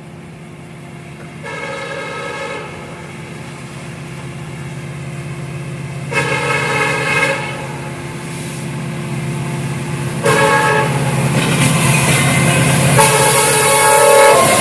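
Diesel locomotive's multi-chime air horn sounding three times as the train approaches: two blasts of about a second each, then a long one held for about four seconds. A low diesel engine hum grows steadily louder beneath it.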